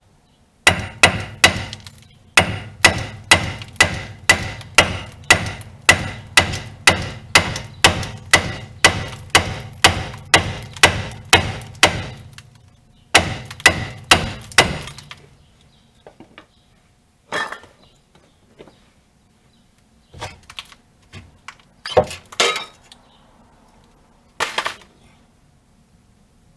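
Hammer blows on steel, about two a second, knocking the old wheel hub assembly out of the steering knuckle. A few more blows follow, then occasional single knocks and clinks.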